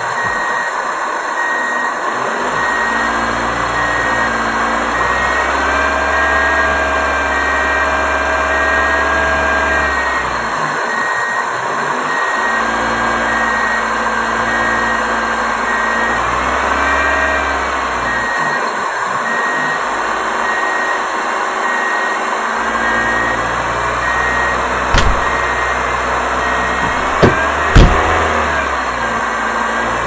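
Engine-like drone running steadily, its pitch rising, holding and dropping back in spells of several seconds, with a deep hum that comes and goes. A few sharp knocks sound near the end.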